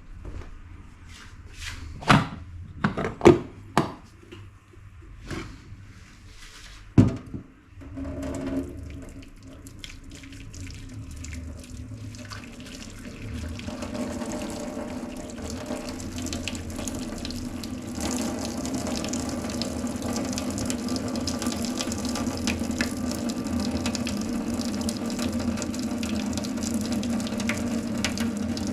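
A few sharp knocks of kitchenware, then water running from a kitchen tap, steady and growing louder as it keeps flowing.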